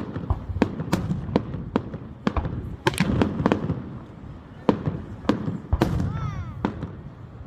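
Fireworks display: an irregular string of sharp bangs, roughly two a second, over a continuous low rumble of explosions.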